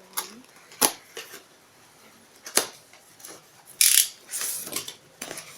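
A delivered box being opened by hand: a few sharp clicks and snips, then a short rasping tear about four seconds in, followed by lighter scraping and rustling.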